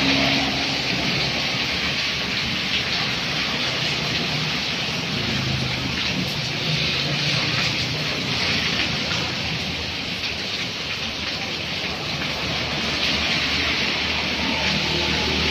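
Steady rain falling on a wet road, with motor vehicles driving past through the water: engine hum swells and fades at the start, in the middle and near the end.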